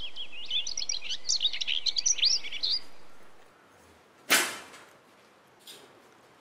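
Birdsong, a rapid run of chirps and whistles that fades out about three seconds in. Then a single sharp knock about four seconds in, with a fainter one near the end.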